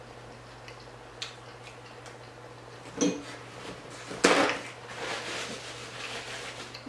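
Quiet eating and table-handling sounds: faint clicks, a brief hum about three seconds in, then a louder rustle a little after four seconds as a paper napkin is handled and hands are wiped.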